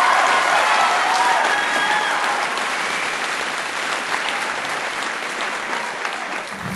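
Audience applauding, with a few voices cheering in the first couple of seconds, the clapping slowly dying down.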